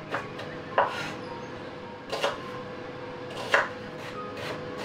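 Kitchen knife chopping an onion on a wooden cutting board: uneven knife strikes on the board, with loud ones about a second, two seconds and three and a half seconds in and lighter taps between.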